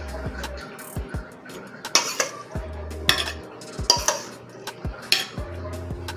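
A metal spoon clinking against dishes as strawberries are spooned onto the cake, over background music with a steady beat.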